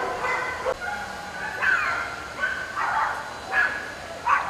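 Dogs yipping and barking: a run of short, high calls about every half second to second, starting about one and a half seconds in.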